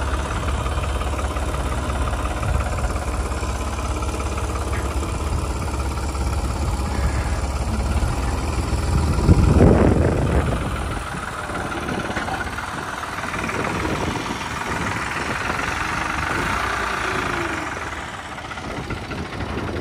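A New Holland tractor's diesel engine idling with a steady low rumble. A little before halfway it swells briefly louder, then the deep rumble drops away and a lighter, higher running sound remains.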